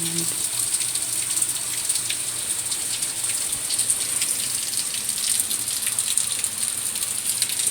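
Steady rain coming down fairly hard, a continuous hiss with many individual drops ticking.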